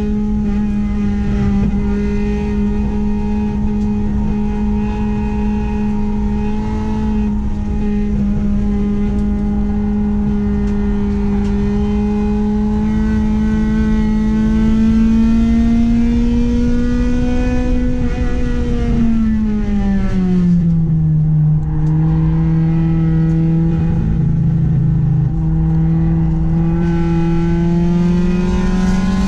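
Honda Accord's H22A 2.2-litre four-cylinder engine running hard at high revs on track, its pitch climbing slowly for about eighteen seconds. About twenty seconds in the revs drop sharply, then hold lower and start climbing again near the end.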